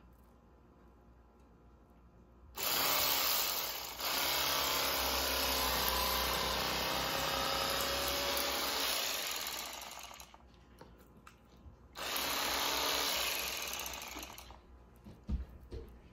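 Bubba Blade electric fillet knife with reciprocating blades running as it cuts into a crappie. It starts about two and a half seconds in, runs for about seven seconds with a brief dip, stops, then runs again for about two seconds before fading out.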